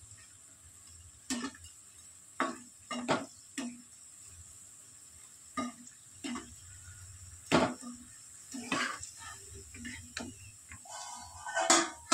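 Metal utensils clinking and knocking against a cooking pot at irregular intervals, about nine sharp knocks, with the loudest clatter near the end.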